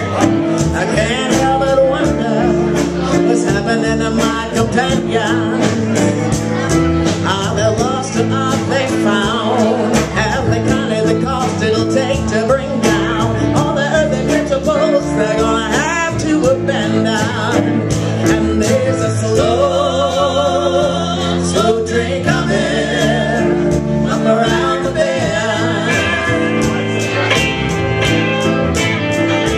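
Live song: a singer with guitar accompaniment, the guitar strummed in a steady rhythm under the vocal line, with a long wavering held note about twenty seconds in.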